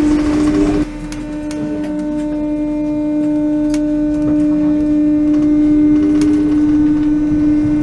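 Paris Métro train's electric traction motors whining steadily as the train moves through a station. A second tone rises in pitch over a few seconds.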